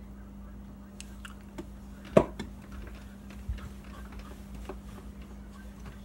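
Scattered clicks and knocks, the loudest a sharp thump a little over two seconds in, over a steady low electrical hum.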